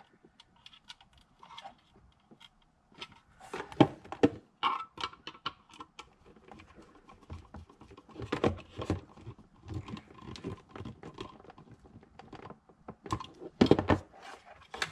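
Irregular small clicks and taps of a screwdriver and fingers working the screw terminals of a plastic LED controller box while wires are fitted, with a few louder knocks in between.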